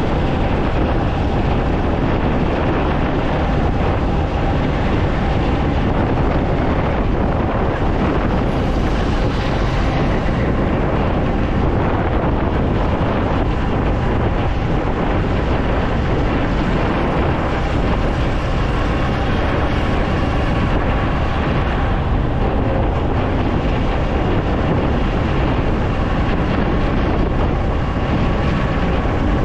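Wind rushing over the microphone on a moving motorcycle, with the Yamaha MT-15's single-cylinder engine running steadily underneath.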